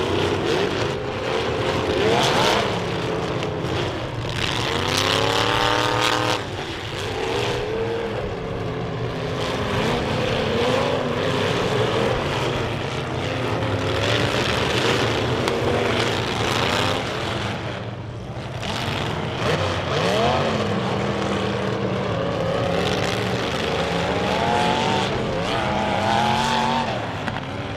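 Several compact demolition derby cars' engines revving hard, their pitch repeatedly climbing and dropping as they accelerate and back up, with a few short knocks of metal impacts among them.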